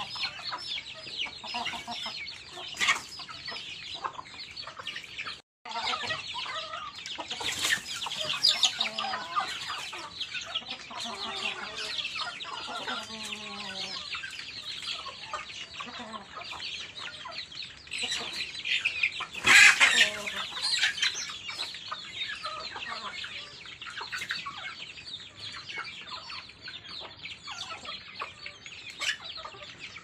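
A flock of chickens feeding: a continuous chorus of chicks' high peeping, with hens clucking in the middle and a brief loud call about two-thirds of the way through.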